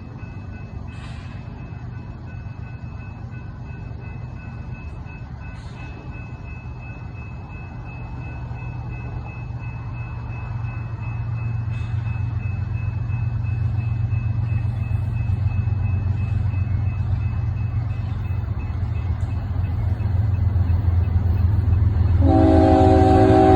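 An approaching diesel train locomotive: a low engine rumble that grows steadily louder, then the locomotive's air horn blowing a chord of several notes near the end.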